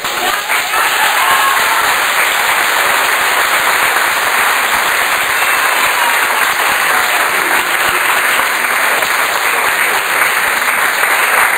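A roomful of people applauding: many hands clapping in a dense, steady patter.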